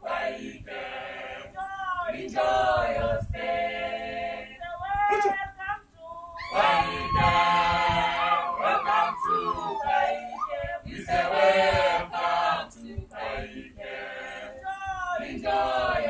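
A group of voices singing a cappella, in phrases broken by short pauses: a welcome song.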